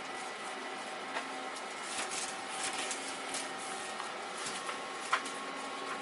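PTC ceramic fan heater running, its fan blowing with a steady hiss and a steady motor hum, with a few light clicks scattered through and the loudest just past five seconds in.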